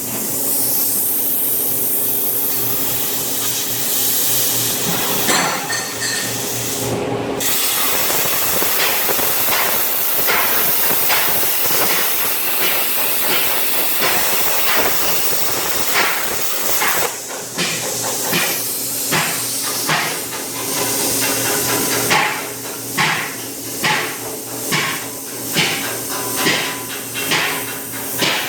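Hypertherm plasma cutter's torch on an ESAB CrossBow CNC table, cutting with a steady hiss over a low hum. The hiss cuts out briefly about seven seconds in, and in the last third it pulses regularly, about once a second.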